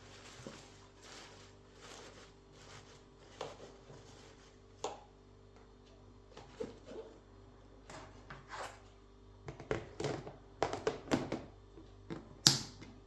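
Irregular clicks and knocks of things being handled, coming more often towards the end with the loudest knock near the end, over a faint steady hum.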